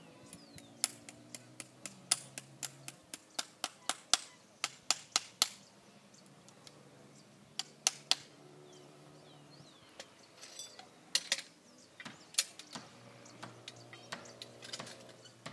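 Farrier's hammer tapping on a horseshoe and its nails at a horse's hoof: a quick run of sharp taps, two or three a second, for about five seconds, then a few scattered taps later. Birds chirp faintly.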